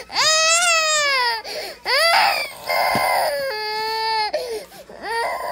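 A toddler crying hard: several long, high-pitched wails that rise and fall, broken by short catches of breath, one of them hoarse and strained.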